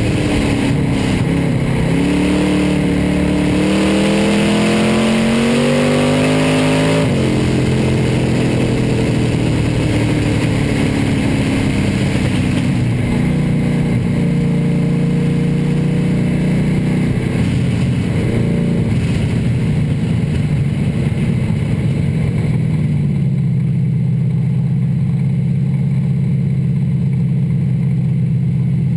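Hobby stock dirt-track race car's engine heard from inside the cockpit, revving higher for several seconds, then dropping off sharply about seven seconds in as the throttle is lifted. It picks up and runs fairly steady, then settles to a steady lower note for the last few seconds.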